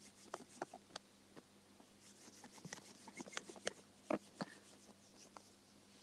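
Faint, scattered soft ticks and rubbing from hands rolling a small piece of stone art clay into a fine coil. A few slightly louder clicks come about three to four seconds in.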